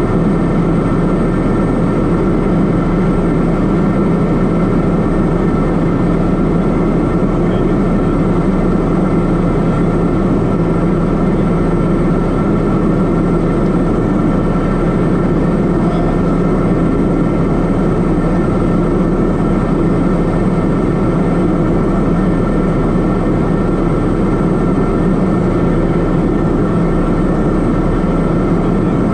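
Cabin noise of a Piper M600 single-engine turboprop in flight: a steady, loud drone from its Pratt & Whitney PT6A turbine, propeller and airflow, holding a constant pitch with no change in power.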